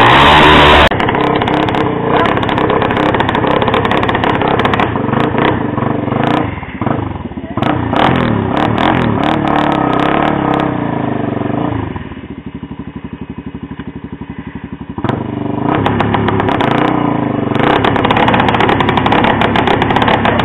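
ATV engine revving hard, its pitch rising and falling. About twelve seconds in it drops back to a quieter, evenly pulsing idle for about three seconds, then revs up loud again.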